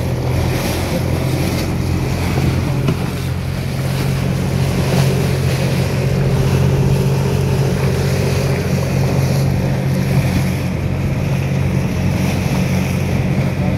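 Motorboat running at a steady speed: a constant engine drone under the rush of water against the hull and wind buffeting the microphone.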